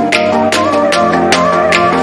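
Electronic background music: a melodic synth line over a steady beat.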